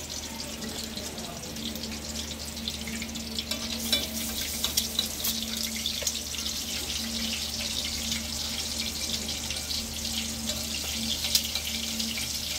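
An egg frying in hot oil in a black pan, sizzling and crackling, with a spoon basting the oil over it; the crackle grows louder about four seconds in.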